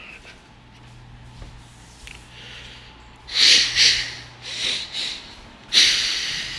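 Loud breathy snorts, several in quick succession from about halfway in, over a faint low hum.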